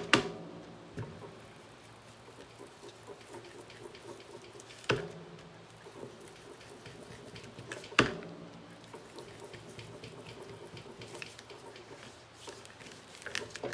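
An ink blending tool dabbed and rubbed over card, giving soft small scuffs and taps, with three sharp knocks on the table, one at the start, one about five seconds in and one about eight seconds in, each followed by a brief ringing.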